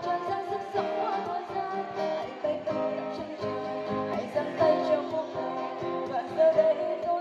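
A woman singing a Vietnamese song through a microphone and PA speakers, accompanied by a strummed acoustic guitar, with a cajon keeping a steady beat underneath.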